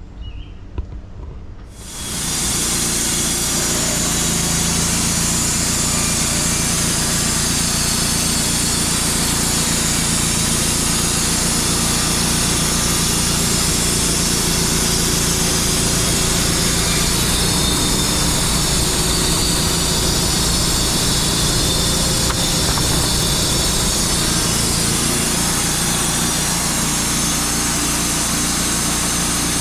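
Wood-Mizer LT35 portable band sawmill sawing a cedar log, coming in abruptly about two seconds in and then running loud and steady.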